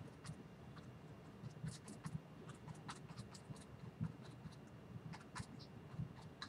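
Faint, irregular little taps and scratches of a fine brush dabbing oil-paint highlights onto a canvas.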